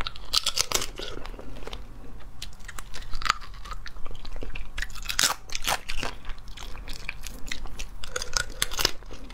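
Cooked crayfish being eaten: shells crunching and cracking between the teeth, with chewing, in irregular clusters of crunches a few seconds apart.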